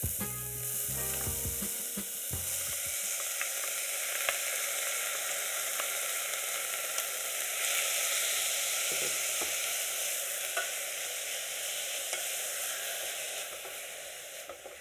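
Finely chopped carrot, celery, onion and garlic sizzling in a little hot olive oil in a stainless steel pot, stirred with a wooden spoon. The sizzle starts as the vegetables go in and fades near the end.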